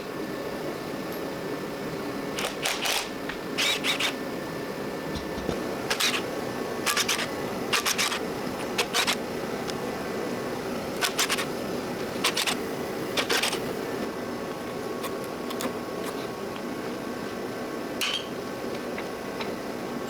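Sharp metal clinks and taps of hand tools and engine parts being handled during an engine teardown, many in quick pairs, every second or so over a steady background hum.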